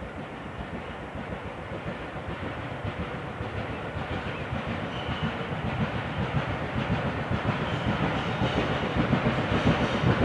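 A steam locomotive working a passenger train as it approaches, its rhythmic exhaust beats growing steadily louder.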